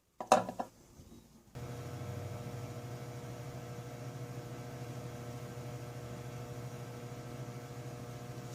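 A short clunk, then a microwave oven starts about a second and a half in and runs with a steady hum.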